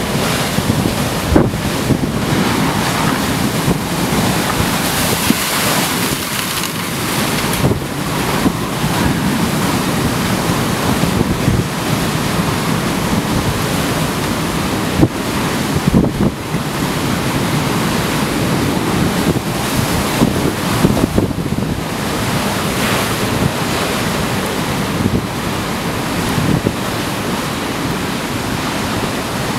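Storm surf breaking heavily over a harbour pier wall: a continuous loud rush of sea and spray. Strong wind buffets the microphone throughout, adding frequent short thumps and gusts.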